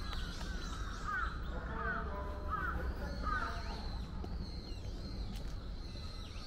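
A crow cawing four times in a quick, evenly spaced series in the first half, over a steady low background hum.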